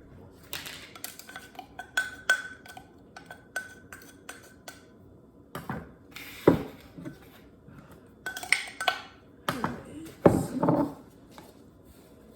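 Kitchen utensils and measuring cups clinking and knocking against a bowl and the counter in irregular clatters, some knocks ringing briefly, with a few heavier thumps about six and ten seconds in.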